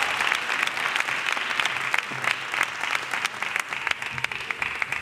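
Audience applauding: dense, steady clapping that begins to ease off near the end.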